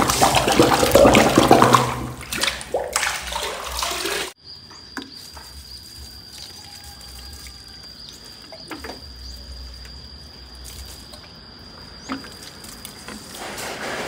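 Water sloshing and splashing in a plastic tub as a plastic watering can is plunged in and filled by hand; it stops abruptly about four seconds in. After that it is much quieter, with a faint steady high-pitched whine.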